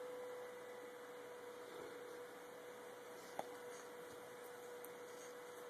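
Faint steady electrical hum at a single pitch over low hiss, with one short click about three and a half seconds in.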